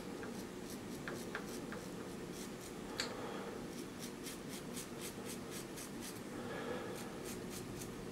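Personna Monsieur Charles shavette scraping stubble off a gel-lathered scalp in runs of short, quick strokes, about four or five a second, with one sharper tick about three seconds in.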